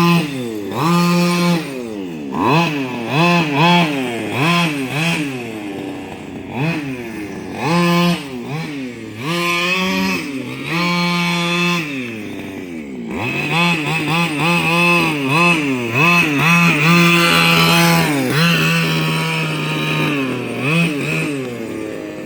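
Small two-stroke string-trimmer engine driving a gas-powered RC car, revved up and down over and over: quick throttle blips, several held at full revs for a second or two, falling back toward idle in between.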